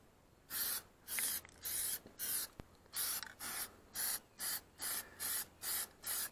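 Aerosol can of Plasti Dip rubber coating sprayed onto a car wheel in quick short passes: about a dozen brief hisses, roughly two a second, after a short pause at the start.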